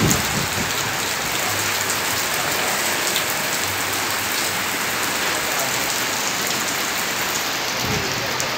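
Steady, even hiss of rain falling, with scattered faint drop ticks.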